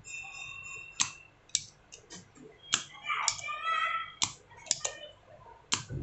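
Spring-loaded desoldering pump (solder sucker) being fired and re-cocked while a soldering iron clears the solder from a MOSFET's holes on a circuit board: about eight sharp clicks at irregular intervals, with brief squeaky sounds near the start and in the middle.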